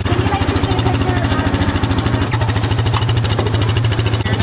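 Side-by-side utility vehicle's engine idling with a steady, even pulsing hum.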